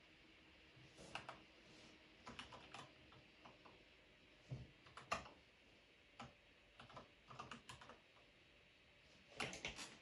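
Typing on an IQUNIX A80 mechanical keyboard fitted with Gateron Yellow linear switches and its stock spacebar. The keystrokes come in short irregular runs with brief pauses between them.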